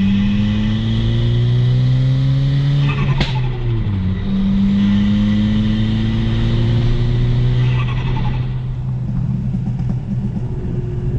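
Turbocharged 1.6-litre four-cylinder of a bolt-on-modified Ford Fiesta ST (catless downpipe, cowl intake) heard from inside the car, accelerating hard with its pitch rising. About three seconds in it drops sharply on an upshift, then climbs again. It eases off to a lower, steadier note about eight seconds in.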